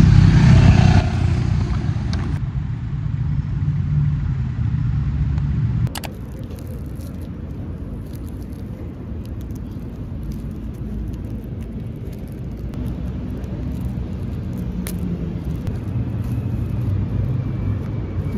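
Steady low rumble of city street traffic, louder for the first six seconds and then dropping off sharply. Faint scattered ticks and crinkles of cellophane wrap being handled on an album case sit over it in the later part.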